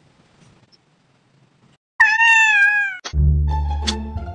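A cat's single loud meow, about a second long, sliding slightly down in pitch, about halfway through. Right after it, music with a heavy bass comes in.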